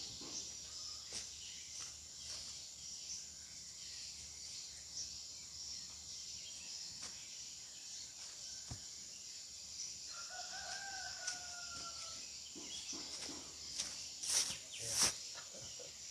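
A rooster crows once, a drawn-out call of about two seconds, some ten seconds in, over a steady high background hiss. Near the end come a few loud, sharp knocks.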